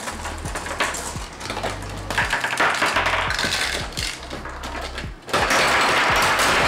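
Background music with scattered light plastic clicks. About five seconds in, a dense, loud plastic clatter starts: B-Daman marble shooters firing and a crash tower's parts and marbles scattering across the table.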